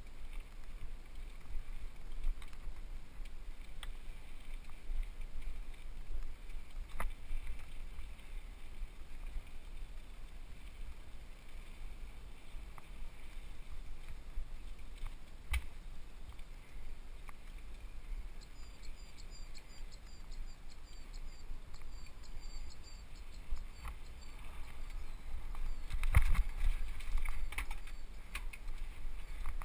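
Mountain bike riding on a rocky dirt singletrack, heard from a helmet camera: a steady low rumble of wind and trail noise with scattered knocks and rattles from the bike over rocks, busier and louder near the end. A faint high chirping repeats several times a second through the second half.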